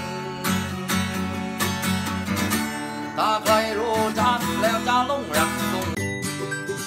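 Acoustic guitar strummed in steady chords, with a man's voice singing over it in the middle.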